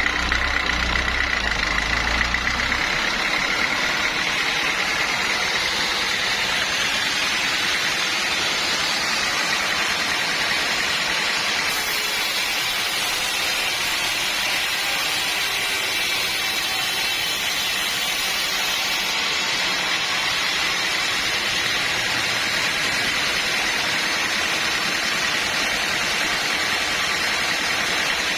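Sawmill machinery running steadily, a dense hiss with a low rumble that drops away about two and a half seconds in.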